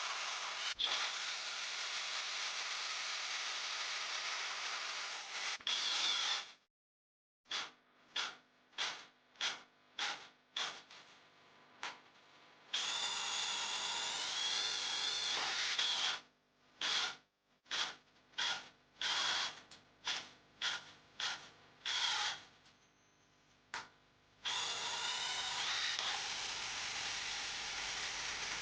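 16 V cordless drill running under load in long steady stretches. These are broken by two runs of short bursts, about two a second, as the trigger is pulsed.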